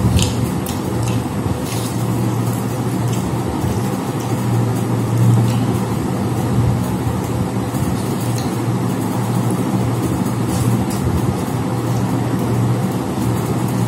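A steady low hum with a few faint clicks and smacks of eating by hand from metal plates.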